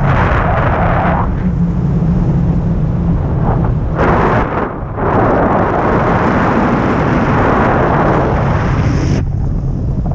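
Wind buffeting the microphone of a camera on a selfie stick, carried along by a tandem paraglider in flight: a loud, continuous rumble with gusts that swell into a rushing hiss, easing briefly about halfway through.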